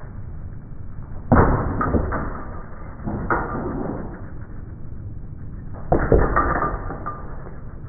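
BMX bike's tyres striking a cinder-block wall and landing back on concrete: three sharp impacts, about a second and a half in, around three seconds in, and about six seconds in, each followed by smaller knocks.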